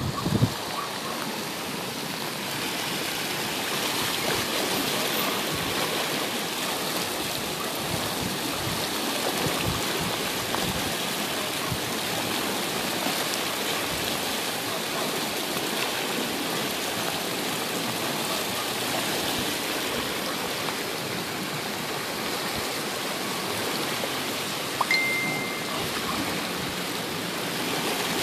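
Steady rush of floodwater running, an even noise of flowing water. Near the end there is a brief click and a short high tone.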